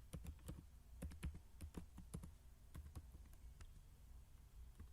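Computer keyboard being typed on: faint, irregular key presses, several a second, as a terminal command is entered.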